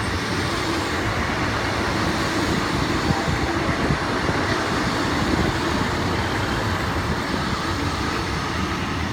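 Three-car diesel multiple unit, a Class 153 coupled to a Class 150 Sprinter, running past while pulling into the station: a steady, loud rumble of underfloor diesel engines and wheels on rails.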